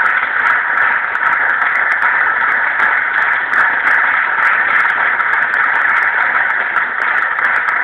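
FM radio receiver hissing with static on a weak, distant station's signal, a steady noise with frequent short crackles, heard through the set's small loudspeaker.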